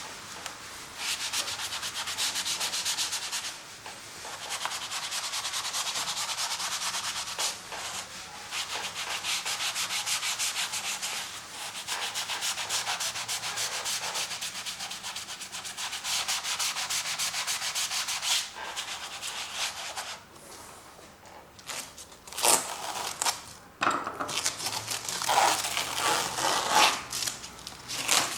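Acrylic paint being worked onto canvas: a painting tool rubbing across the surface in long, scrubbing strokes of several seconds each, with brief pauses between them. In the last few seconds the strokes become shorter and choppier.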